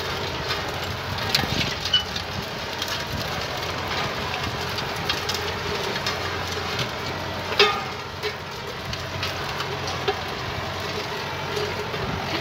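Farm tractor engine running steadily under load as it pulls a disc harrow through dry soil, with the harrow's steel discs and frame clanking and knocking irregularly; one louder clank about seven and a half seconds in.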